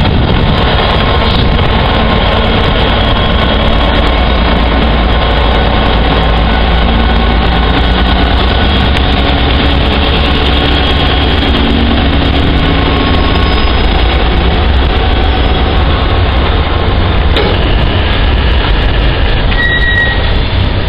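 Loud, steady running of a Class 66 diesel-electric freight locomotive's two-stroke V12 engine as it pulls a train of steel-coil wagons past. A brief high squeal comes near the end.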